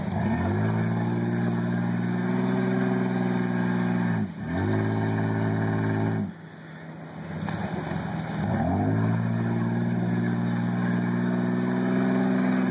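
Four-door Jeep Wrangler's engine revved hard and held at high revs under load while it climbs out of the river up a muddy bank. It happens three times, the pitch quickly climbing to a steady high, with short drops about four and six seconds in.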